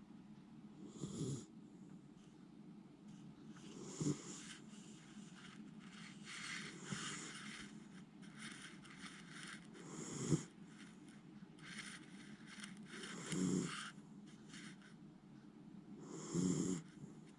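Miniature schnauzer snoring in deep sleep, about six snores roughly three seconds apart.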